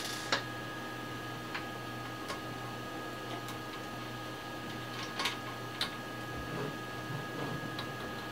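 Scattered light clicks and taps of a screwdriver and screws against the metal case of an Astron SS-30M power supply as its cover screws are taken out, the sharpest just after the start, over a steady low hum.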